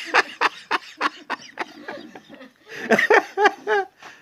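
People laughing, with a quick run of four short pitched "ha" sounds about three seconds in, among sharp clicks.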